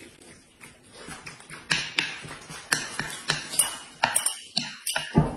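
Noisy eating of stir-fried noodles with chopsticks: a run of irregular wet smacks and chewing, mixed with sharp clicks of chopsticks and a spoon against dishes.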